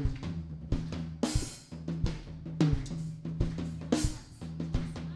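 Drum kit playing an upbeat praise-song groove, with kick, snare, hi-hat and cymbal hits coming several times a second over a held low note. It is the band kicking off a praise song.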